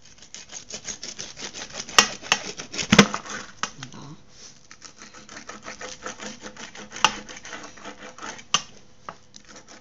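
Metal cutter slicing through a freshly baked pizza, the crust crackling in a rapid run of small clicks, with a few louder sharp clicks along the way.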